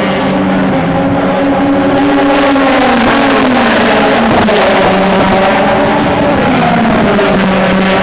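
Several DTM race cars with V8 engines running hard together, their overlapping engine notes sliding down and back up in pitch as they brake and accelerate.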